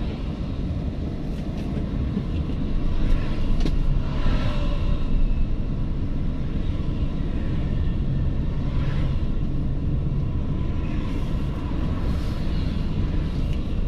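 Steady engine and road rumble heard inside the cabin of a small manual Toyota Agya driving in town traffic. Other traffic swells past a few times.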